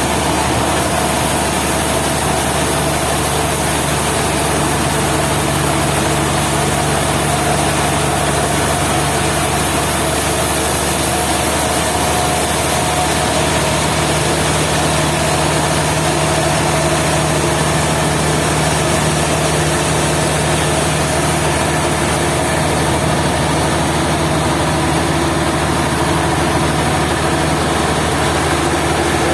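Sawmill machinery with its engine running steadily, a constant low hum under a steady noisy hiss with no breaks, its pitch shifting slightly about halfway through.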